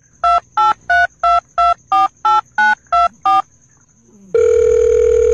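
Telephone keypad tones: ten short two-note beeps, about three a second, like a number being dialled, then a steady call tone starting about four seconds in.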